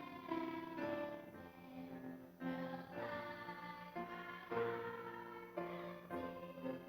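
Church music: voices singing a hymn melody with instrumental accompaniment, the notes changing every half second or so.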